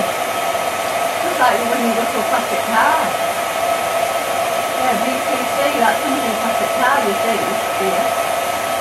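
Cine film projector running: a steady motor-and-fan whir with a constant hum tone.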